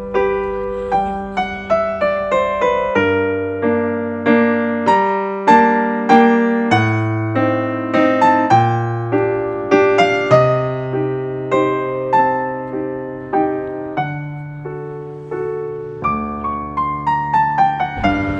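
Background piano music: a steady run of struck, decaying notes over bass notes that change every second or two.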